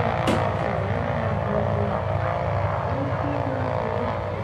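Several Grumman TBM Avengers' Wright R-2600 radial engines running together during a ground run-up, a loud, steady, deep sound of many engines at once with fast even pulsing from the cylinders firing.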